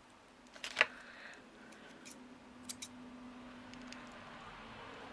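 Small craft scissors snipping string ends at a tied knot: a sharp snip just before a second in, then two quick clicks near the middle.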